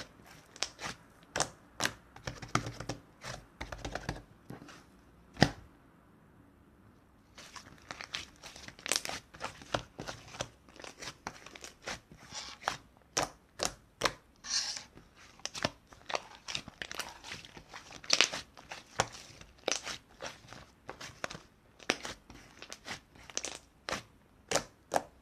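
Slime being squished and pressed by hand, giving a run of sharp, irregular pops and crackly clicks, about one or two a second, with a short pause about six seconds in.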